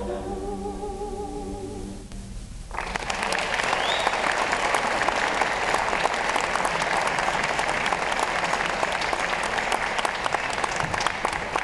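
A cappella choir holding a final sung chord that stops about two seconds in. After a brief pause, an audience breaks into loud, steady applause, with a short rising whistle just after it starts.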